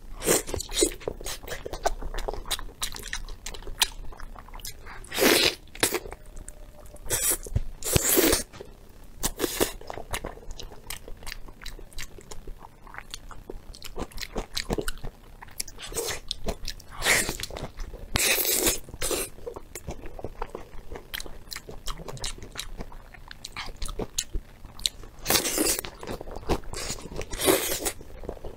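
Close-miked chewing and biting of soft, sticky braised beef tendon: continuous wet mouth clicks and smacks, with a few louder, longer wet mouth noises spread through.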